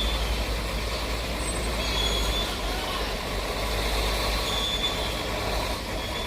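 A heavy vehicle's engine running with a steady low rumble, with a few faint short high beeps about two seconds apart.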